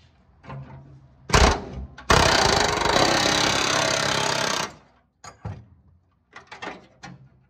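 Pneumatic air chisel hammering through the welded steel sheet metal of a 1966 VW Beetle's heater channel. A short burst comes about a second in, then a loud, continuous run of rapid hammering lasts about two and a half seconds as it cuts through the last of a welded-on patch.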